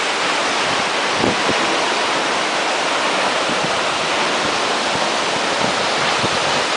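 A large waterfall's water falling and crashing into its pool, a steady loud rush.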